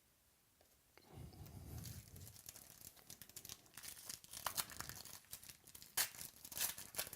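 A trading-card pack wrapper being torn open and crinkled, starting about a second in, with sharp crackles throughout and the loudest crackle about six seconds in.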